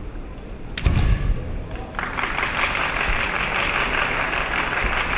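A sharp crack of a bamboo shinai strike with a heavy stamp of the foot on the wooden floor just under a second in. From about two seconds in, a large crowd of spectators applauds steadily.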